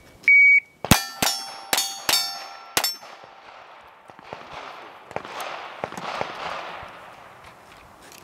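An electronic shot timer gives one short beep, then a pistol fires five quick shots in under two seconds, each answered by the clang and ring of a steel target plate being hit.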